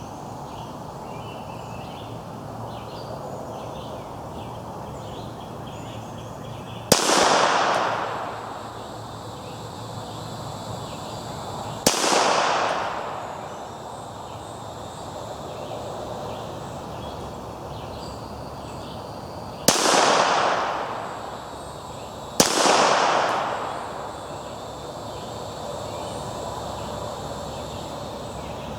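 Four single shots from a Ruger Mark III 22/45 .22 LR pistol, several seconds apart with the last two close together. Each sharp crack trails off over about a second and a half.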